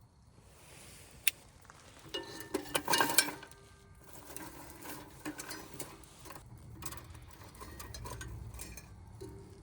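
Metal clinks and knocks on a metal fire pit, with short ringing after them, loudest about three seconds in; scattered lighter clicks follow.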